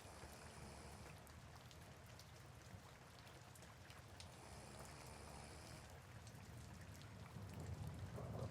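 Soft rain, faint and steady, with scattered single raindrop ticks. A low rumble swells near the end.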